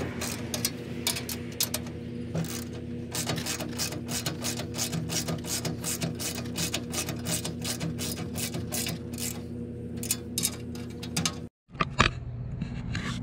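Socket ratchet wrench clicking rapidly as bolts on a trailer blower rack's height adjustment are turned, over a steady low hum. The clicking breaks off briefly near the end.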